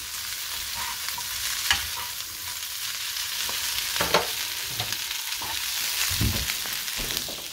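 Spaghetti, broccolini and bacon sizzling steadily in oil in a frying pan as the pasta heats through, with a few sharp clicks and knocks from metal tongs tossing it in the pan.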